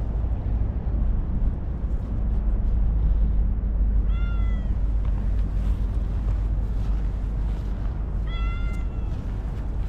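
A stray cat meowing twice, two short high meows about four seconds apart, over a steady low rumble.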